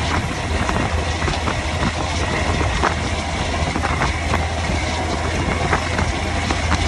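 Caterpillar C15 diesel semi-truck engine with straight-pipe exhaust, running steadily under way at road speed, mixed with rushing wind and road noise.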